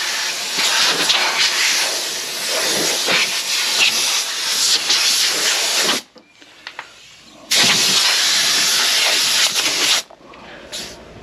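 Compressed-air blowgun blasting dirt and dust out of a tractor, in two long blasts with a break of about a second and a half between them.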